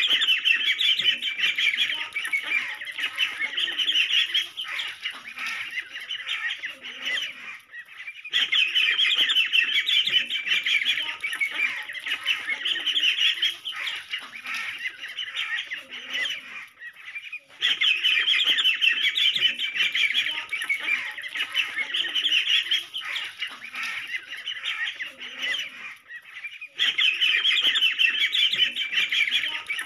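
Many ducklings peeping at once, a dense chatter of rapid high calls. The chorus drops out briefly and restarts about every nine seconds.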